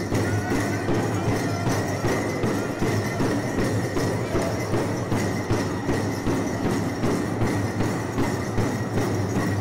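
Powwow drum group playing: a steady beat on a big drum with the singers' voices over it.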